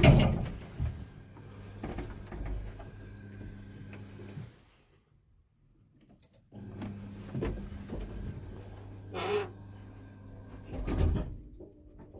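Lift car machinery: a loud clunk at the start, then a steady electrical hum with scattered knocks and rattles. The hum drops out for about two seconds midway, returns, and another thump comes near the end.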